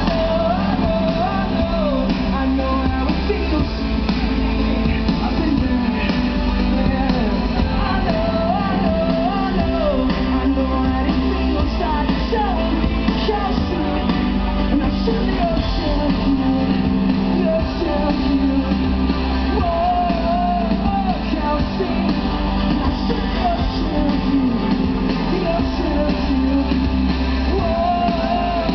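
A rock band playing live with a singer and electric guitars over bass and drums, heard through a big outdoor PA from among the audience.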